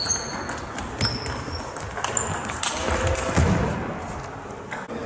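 Table tennis ball being struck by bats and bouncing on the table in a doubles rally: several sharp clicks with a short high ring, irregularly spaced over the first three seconds or so.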